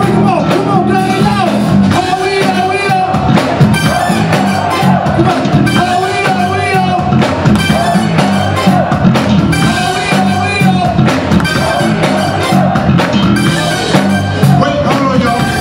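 Funk band playing live: electric bass, drum kit and keyboards in a steady groove, with a lead vocal over them.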